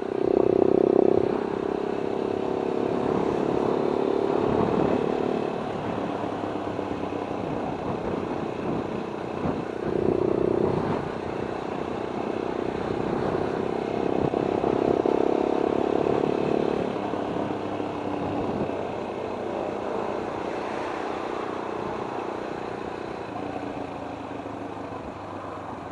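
Motorcycle with an Akrapovic aftermarket exhaust running on the move, its engine note swelling with the throttle about a second in, around ten seconds and again around fifteen seconds, over steady wind noise.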